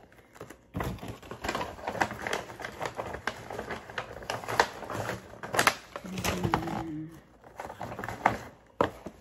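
Dense, irregular clicks, taps and rustling of small paper boxes and a paper gift bag being handled and packed close to the microphone.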